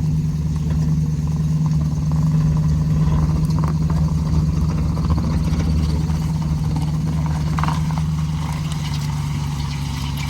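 A vehicle engine idling steadily with an even, unchanging hum.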